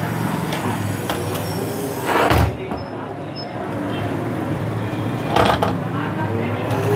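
Sewing machine head being handled and tipped back, with two short knocking clatters about three seconds apart over a steady low hum.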